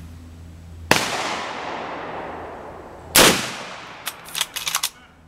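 .357 Magnum gunshots: two shots about two seconds apart, each with a long echoing tail. A few short light clicks follow near the end.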